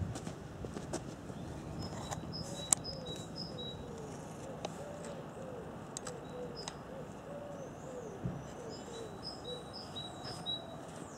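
Garden birds calling: a small bird's high chirps come in short runs a couple of seconds in and again near the end, and a run of about a dozen short, low cooing notes goes on through the middle. A single sharp click a few seconds in is the loudest sound.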